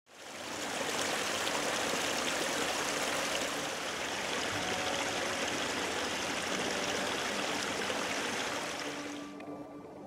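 Flowing river water, a steady rushing hiss that fades in over the first second and drops away about nine seconds in, as soft music with held notes comes in.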